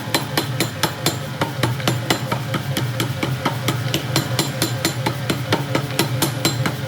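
Rapid, evenly spaced hammer blows on metal at the forge, about five a second, over a steady low hum.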